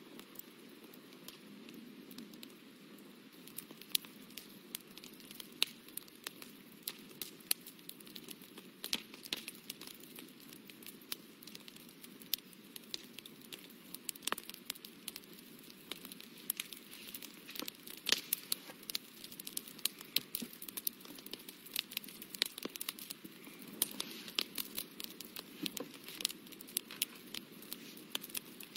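A paintbrush dabbing and tapping on watercolour paper, making irregular small clicks and crackles over a faint steady hum.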